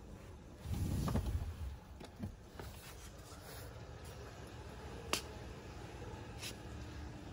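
Quiet handling noise inside a car's cabin: a low rubbing rumble about a second in, then two sharp clicks near the end.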